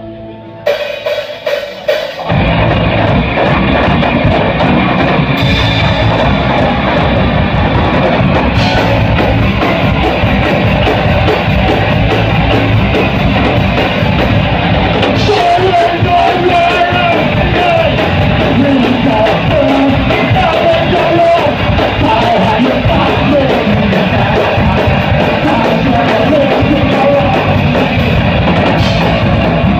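A live rock band plays loud. A few separate drum hits come in the first two seconds, then the full band (electric guitar, bass guitar and drum kit) comes in together about two seconds in and keeps playing hard.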